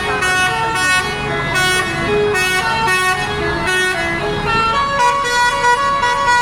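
A bus's telolet basuri musical air horn playing a quick melody of short stepped notes, settling on a few longer held notes near the end.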